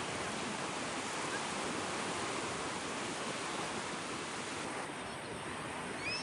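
Steady surf of sea waves washing onto a beach, an even rushing hiss. Right at the end a short high call from an animal rises and falls over the surf.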